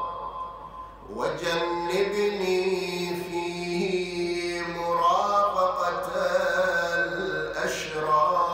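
A man's voice chanting an Arabic supplication (du'a) in slow melodic recitation, holding long notes that bend gently in pitch. He pauses for breath just after the start and comes back in about a second in.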